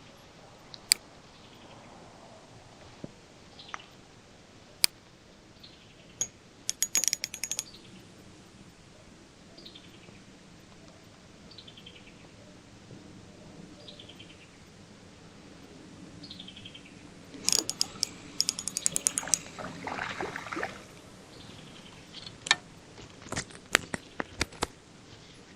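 A bird repeating a short falling call every second or two, over sharp clicks and two bursts of rapid clicking, about a third of the way in and again past the middle, with a brief rustling noise just after the second burst.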